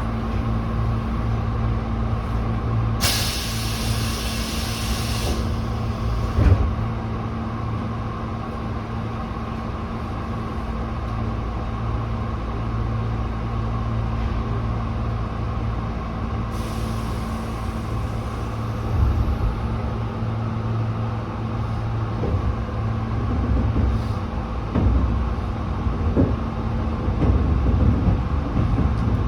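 Tobu 8000-series electric train's air brakes hissing as they are released, a loud burst about three seconds in and a shorter one later, over a steady hum from the train's equipment, with a thud in between. Toward the end the train pulls away, with low rumbling and knocks.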